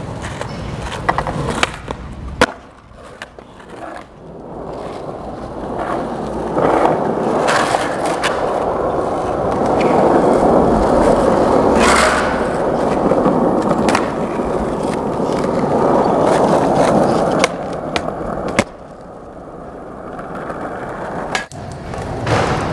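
Skateboard wheels rolling on rough asphalt, with several sharp clacks of the wooden board popping and landing. The rolling noise grows louder through the middle.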